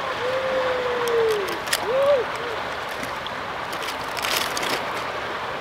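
River water rushing steadily over rocks. A faint drawn-out voice-like tone lasts about a second near the start, with a shorter one about two seconds in, and a few light clicks come in the second half.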